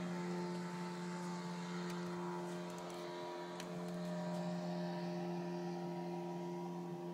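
A steady mechanical hum, like a motor running, holding the same low drone and overtones without change.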